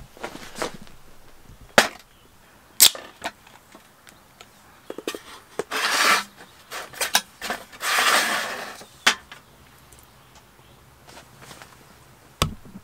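Scattered knocks and clicks from a metal baking tray and a beer can being handled on an aluminium camp table, with two short swishing noises in the middle and a dull thump near the end.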